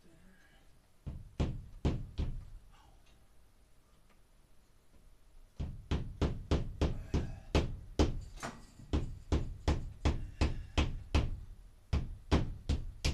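Hammer tapping a plastic wall anchor up into old, brittle drywall ceiling: a few sharp knocks, a pause, then a long steady run of about three blows a second.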